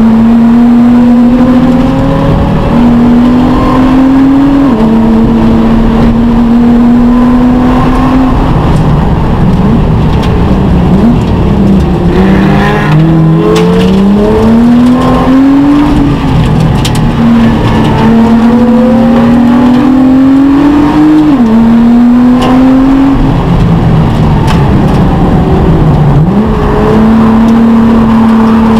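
Nissan GT-R R35 race car's twin-turbo V6 heard from inside the cockpit, running hard through a lap. Its pitch climbs steadily and drops sharply at two upshifts, with lower dips where the car slows for corners.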